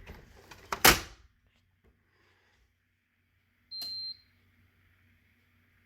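A few clicks and one sharp knock, then a single short, high electronic beep about four seconds in as the fire alarm system is reset.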